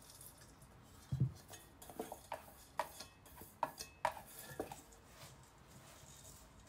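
A small stainless steel bowl knocks and clinks against a stainless steel mixing bowl about ten times over three seconds as ground almonds are shaken out of it. After that, hands mixing the almonds in the bowl make a faint rustle.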